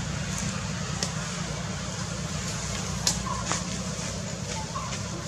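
A steady low rumble, with a few sharp crackles of dry leaves as a macaque rummages in the leaf litter with its hand, and a few faint short chirps in the second half.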